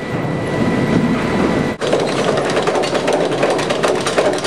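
Sawmill log-handling machinery running loud. At first it is a steady mechanical noise with a faint high whine. After an abrupt break about two seconds in, it becomes a dense rattling clatter like conveyors carrying logs.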